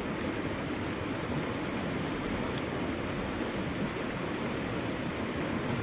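A shallow stream rushing steadily over and around rocks.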